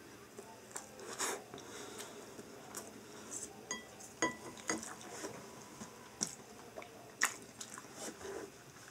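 Wooden chopsticks tapping and clicking against a porcelain bowl and plate, several sharp taps, a few with a brief ring, the loudest about seven seconds in, amid soft chewing.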